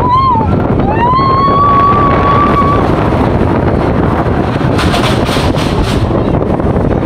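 Schwarzkopf Jet Star 3 steel roller coaster heard on board at speed: steady wind rush over the microphone and the rumble of the train running on the track. A high wailing tone rises near the start and holds for about two seconds, and a few quick rattles come about five seconds in.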